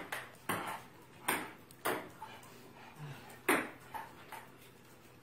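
A table tennis rally: a celluloid ping-pong ball clicking off the paddles and the top of a STIGA Advantage Competition indoor table, about two hits a second at an uneven pace. The rally stops a little after four seconds in.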